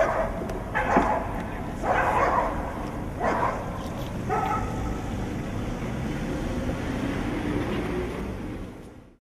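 A dog barking about five times, over a steady background noise that fades out near the end.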